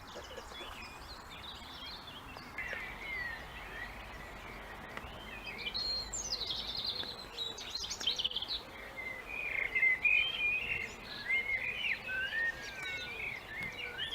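Several wild birds singing at once, a mix of chirps, trills and warbling phrases, livelier in the second half, over a faint steady background hiss.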